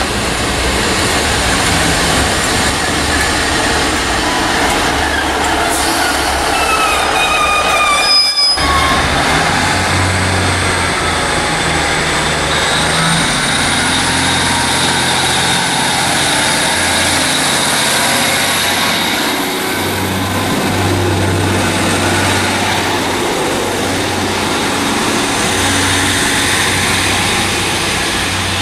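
Class 150 Sprinter diesel multiple unit running into the platform, with high squealing from its wheels and brakes about six to nine seconds in. Then its underfloor diesel engines run with a low hum, and a high whine rising in pitch comes as it pulls away.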